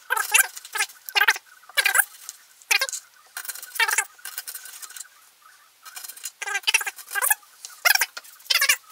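Kitchen knife slicing a raw onion into half-rings on a plastic cutting board, each cut a short squeaky crunch. The cuts come one or two a second, with a short pause around the middle.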